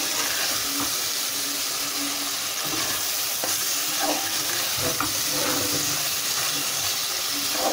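Okra (bhindi) with onion and tomato masala frying in oil in a metal karahi over high heat: a steady sizzle, with the spatula stirring and scraping through the pan.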